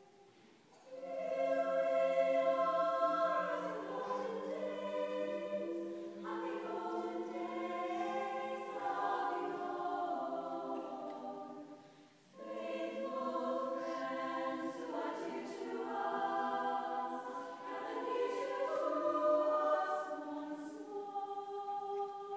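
Choir singing a slow Christmas song in several-part harmony, on long held notes, in two long phrases with a short breath about twelve seconds in.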